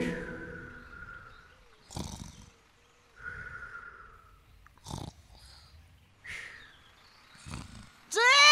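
Soft thuds about two, five and seven and a half seconds in, with faint tones between them. Near the end comes a loud, animal-like call that rises in pitch and then holds.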